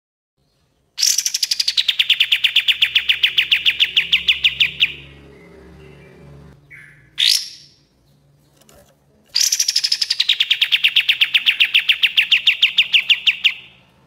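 Kapas tembak, a bulbul, singing its rapid-fire 'tembak' song. There are two runs of about four seconds each, made of fast repeated notes that start high, drop and then hold steady. A short rising note comes between the two runs.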